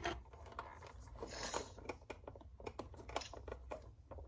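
Faint, scattered small clicks and rubbing from hand work on a Big Mouth Billy Bass: its rubber skin being stretched and wrapped around the plastic motor holder in the head.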